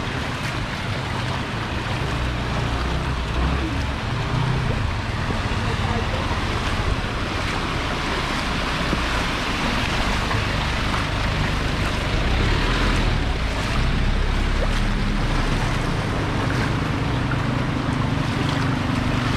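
Vehicles driving through floodwater: water sloshing and splashing over a steady engine hum. The splashing is loudest about halfway through as a Ford pickup truck pushes through the water, and the engine hum grows stronger near the end.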